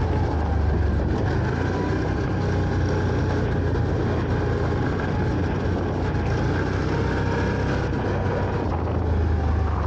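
Can-Am ATV engine running steadily while the quad is ridden across dry dirt, a constant low hum with tyre and ground noise.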